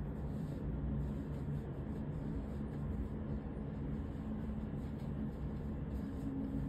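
Steady low rumble of distant airport and city background noise, with a faint low hum that shifts slightly in pitch near the end.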